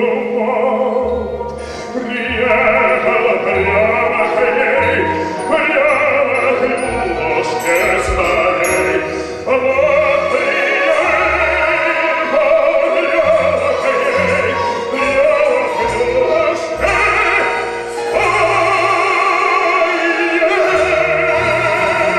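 Operatic baritone singing a slow, sustained vocal line with a symphony orchestra accompanying; strings and low bass notes under the voice, growing louder about two seconds in.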